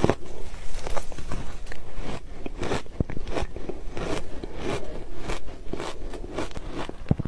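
Ice being bitten and crunched between the teeth, with many sharp irregular cracks and crunches.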